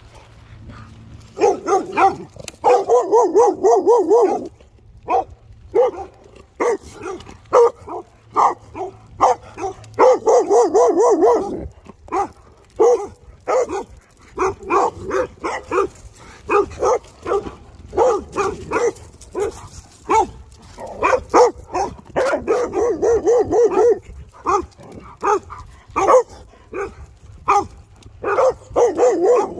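Dogs barking repeatedly at a passing rider: a string of short barks, broken several times by longer wavering calls.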